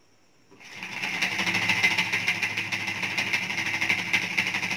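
Homemade syringe steam engine running: a fast, even rattle of the syringe plunger shuttling in its barrel as it turns a CD flywheel, starting about half a second in.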